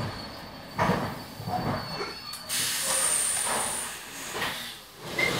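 Electric commuter train standing at a platform, heard from inside the carriage: a few knocks, then about halfway through a sudden hiss of compressed air from the train's pneumatic brakes or doors, with a faint high whine in it, lasting about two seconds.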